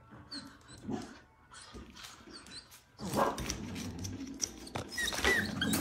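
A dog making short high whining sounds, with the sound growing busier and louder from about three seconds in.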